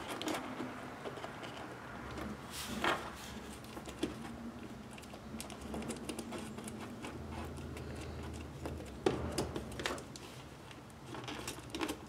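Faint small clicks, taps and rustles of fingers packing a microfiber cloth and small tools into a metal Altoids tin, the items knocking lightly against the thin tin.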